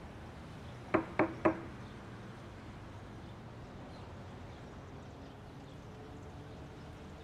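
Three quick, sharp knocks about a second in, each a quarter second apart with a short hollow ring, over a faint steady room hum.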